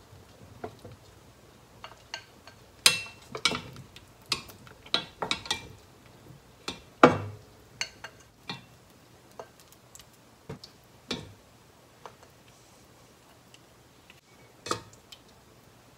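Chopsticks clicking and tapping against a stainless steel pot and a ceramic bowl while braised pig's trotters are lifted out and set in the bowl. Irregular sharp clicks, some in quick clusters, the loudest about three and seven seconds in.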